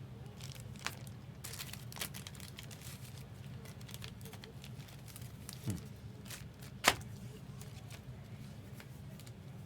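Trading cards and plastic card holders handled on a table: scattered small clicks and crinkles, with one sharper click about seven seconds in, over a steady low hum.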